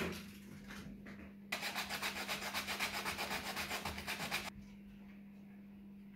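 A knock, then about three seconds of fast back-and-forth hand strokes rasping across a wooden block, several strokes a second, before stopping abruptly. A steady low hum runs underneath.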